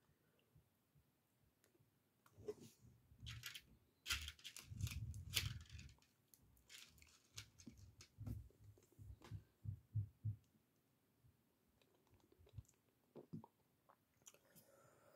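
Faint, scattered clicks and soft rattles of small LEGO plastic pieces being handled and pressed together, with quiet gaps between them.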